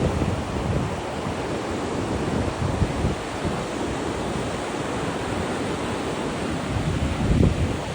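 Ocean surf washing in steadily, with wind buffeting the microphone and a stronger gust near the end.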